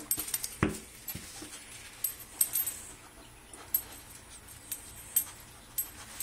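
An adult dog and a golden retriever puppy scuffling in play on a wooden floor: scattered sharp clicks and scrapes, with a louder knock about half a second in.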